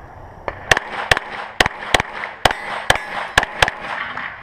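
A 9mm Glock pistol fired rapidly about ten times, mostly in quick pairs about a third of a second apart, each shot followed by a short echo.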